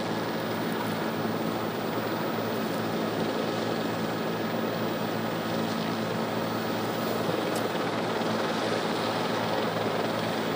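Steady drone of a helicopter's engine and rotors, an even rushing noise with a low hum held under it.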